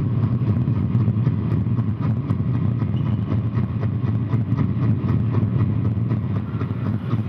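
A steady, low mechanical rumble like a motor running, with faint ticking throughout.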